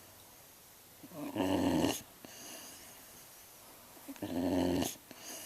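A pet snoring and grunting: two snores about three seconds apart, each a little under a second long.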